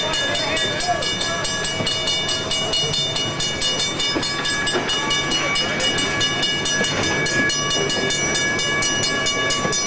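Passenger train cars rolling slowly along the track, with a steady high-pitched whine over the rumble and clatter of the wheels.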